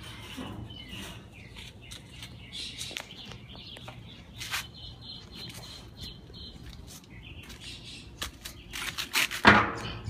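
Small birds chirping in the background, with scattered clicks and a louder burst of noise about nine seconds in.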